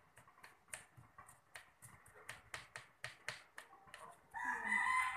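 Kitchen knife chopping garlic on a cutting board, quick taps about three a second. About four seconds in, a rooster crows loudly, one long call that carries on past the end.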